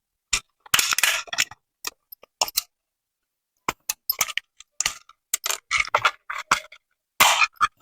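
Plastic device housing being pried open with a tool: a run of short clicks, clacks and scrapes as the snap-fit case is worked apart, one cluster about a second in and a busier run from about four seconds in until near the end.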